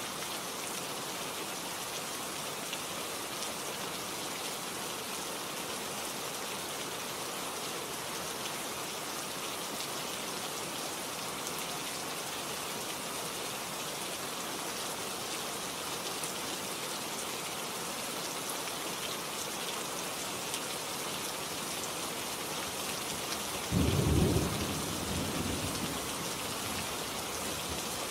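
Steady rain falling in an even hiss. Near the end a sudden clap of thunder breaks in low and loud, then rumbles away over a couple of seconds.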